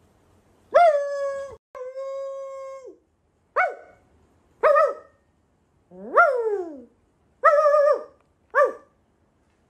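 A man and a beagle trading howls: seven short howls with pauses between, some held on one pitch, one swooping up and then falling away.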